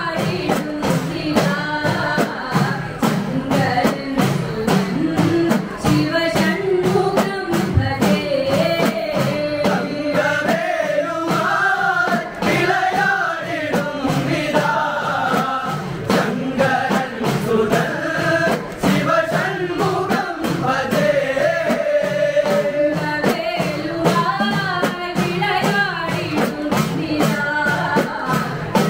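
Kavadi chindu song: a woman singing the lead, with men's voices joining, over fast, steady strokes of several small hand-held drums.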